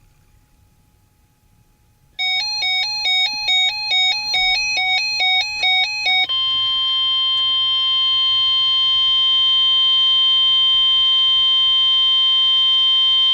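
NOAA Weather Radio alert: about two seconds in, a rapid warbling beep that switches back and forth between two pitches, then a loud, steady, long alarm tone. This is the weather radio's warning alert, the signal that a new warning is about to be broadcast.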